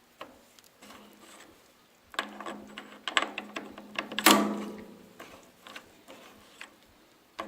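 Steel tool holder and quick change tool post on a lathe being handled: scattered metal clicks and clanks, with one sharp knock about four seconds in that rings briefly.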